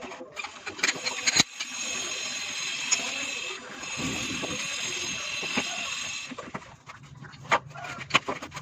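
A machine runs steadily for about five seconds with a high hiss and faint steady tones, between scattered sharp knocks near the start and the end.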